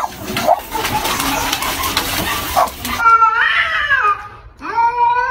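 Domestic cat yowling at another cat: two long, wavering caterwauls, the first about three seconds in and the second starting near the end. They follow a few seconds of noisy, indistinct sound.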